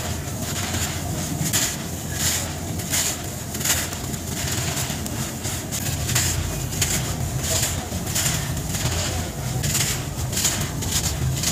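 Hands crushing and crumbling molded cylinders of fine packed sand: a run of soft, gritty crunches, one every half second to second, with loose sand trickling down between them. The playback is sped up to 1.5x.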